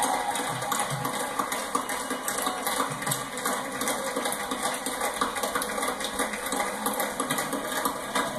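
Crowd applauding, a dense steady patter of many hands clapping, heard through a television's speaker.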